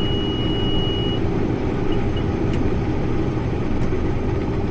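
Combine harvester running with a steady, even drone, and a steady high-pitched buzzer tone that cuts off about a second in.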